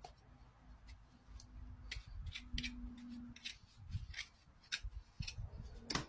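Irregular short scraping strokes at a horse's hoof as it is trimmed and cleaned, about ten of them, the loudest near the end.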